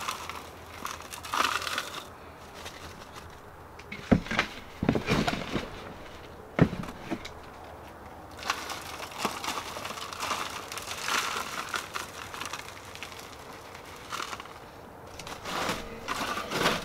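Potting soil poured from a plastic nursery pot and spread into plastic seed-starting cell trays, a rustling, crackling pour that comes and goes. A few sharp knocks about four to seven seconds in.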